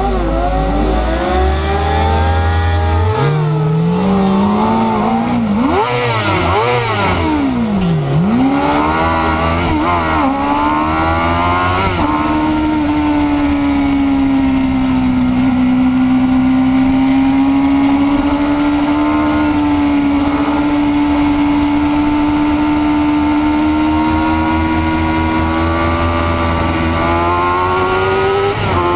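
Onboard sound of a racing sportbike's engine launching off the start line and revving up through the gears, its pitch climbing and dropping with each shift over the first twelve seconds. It then holds a steady high pitch at speed down the straight, climbing again near the end.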